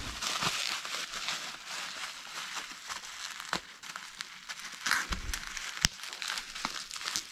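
Plastic bubble wrap crinkling and rustling as it is handled and unwrapped, with many small crackling clicks and one sharper click a little before six seconds in.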